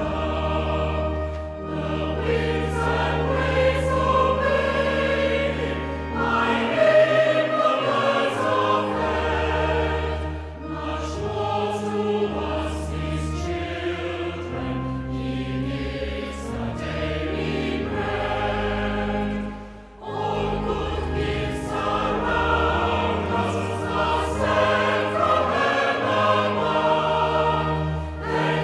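Choir singing a hymn over sustained low accompanying notes, with a brief pause between phrases about twenty seconds in.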